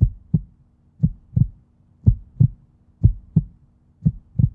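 Heartbeat sound effect: a steady double thump, lub-dub, about once a second, low and muffled.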